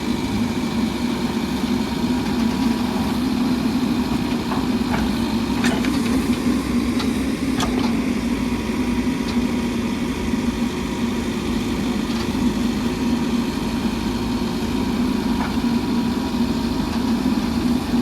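Diesel engine of a Mahindra backhoe loader running steadily, with a few faint clicks about six and seven and a half seconds in.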